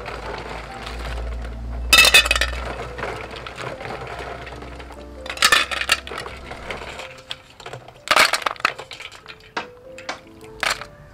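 Live snails rinsed by hand in a steel bowl of water: the water splashes and the shells clink against each other and the bowl in about four short bursts. Soft background music plays throughout.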